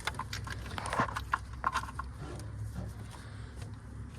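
A quick run of sharp metallic clicks and taps from hand tools and parts being handled on the engine during spark plug removal, over a steady low hum. The clicks thin out after about two seconds.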